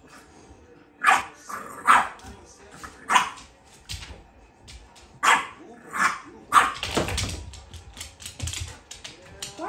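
A French bulldog barking at a cat in play: about seven short, sharp barks at uneven intervals. Near the end comes a flurry of scuffling and thudding as a second, larger dog runs across the hardwood floor.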